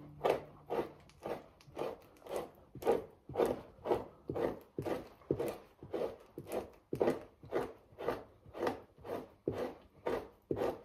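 Fleshing knife scraping fat and membrane off a raccoon hide stretched over a PVC-pipe fleshing beam, in even slicing strokes about two a second.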